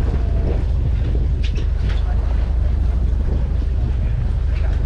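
Wind rumbling steadily on the microphone aboard a small fishing boat in choppy water, with a few faint clicks or knocks.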